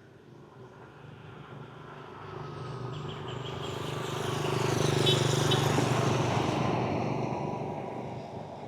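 A motor vehicle approaching and passing by: its engine and tyre noise grow steadily louder to a peak about five seconds in, then fade away.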